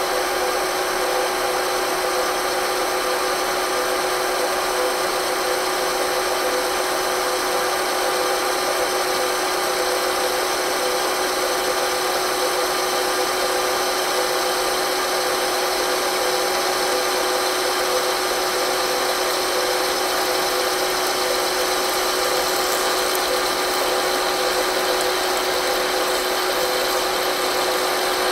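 Manual lathe parting off a 50 mm hollow steel bar (Ovako 280) under flood coolant. The spindle turns and the parting blade cuts steadily, with a constant whine of several steady tones. Over the last few seconds a faint high whine slides down in pitch.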